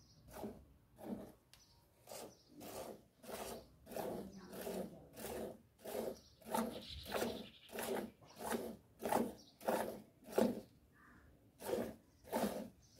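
Cow being milked by hand: short squirts of milk from the teats hiss into a steel pail of frothy milk in a steady rhythm, about three squirts every two seconds, with a brief pause near the end.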